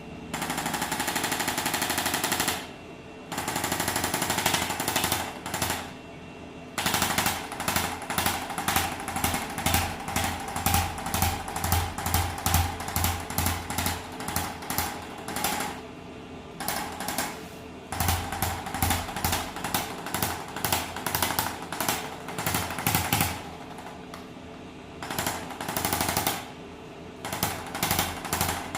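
ArthroStim handheld adjusting instrument firing a rapid train of percussive taps, a fast clatter of clicks, as it is worked over stiff spinal joints. It runs in bursts from about one to several seconds long, separated by short pauses.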